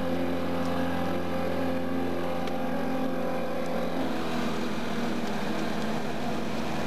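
Motorboat engine running steadily on the water, with its tone shifting about four seconds in.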